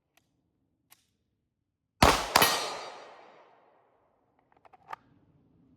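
Two pistol shots from a 9mm PSA Dagger fitted with a Radian Ramjet, fired about half a second apart with a long fading echo after them. A few light clicks of handling follow near the end.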